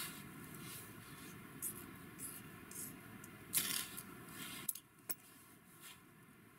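Ferrocerium fire-starter rod scraped with a steel striker: several quick, high scraping strokes, the longest and loudest about three and a half seconds in, throwing sparks that light the fibre tinder. A couple of sharp light clicks follow about a second later.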